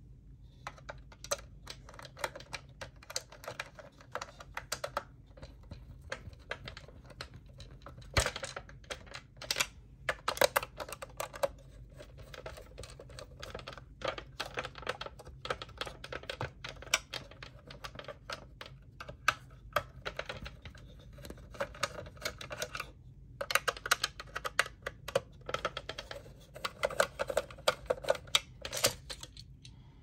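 Rapid, irregular clicking and tapping of small screws, hand tools and plastic fan housing parts being handled and fitted, in bursts with short pauses, over a faint steady low hum.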